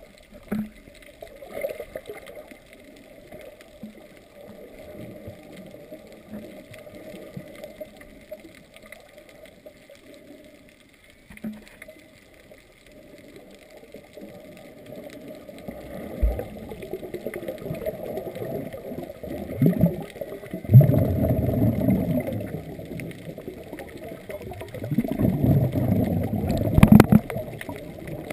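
Muffled underwater water noise picked up by a GoPro in its waterproof housing: low sloshing and gurgling that grows louder in the second half, with several surges.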